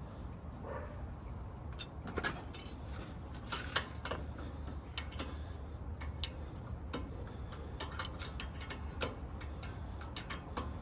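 Irregular metallic clicks and taps from hand tools and bolts as brake caliper bolts are threaded in, over a steady low hum.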